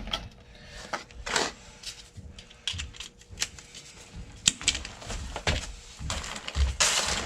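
Irregular metallic clicks, clanks and knocks, with a few dull thumps, from handling a drain snake and its cable at an open sewer cleanout.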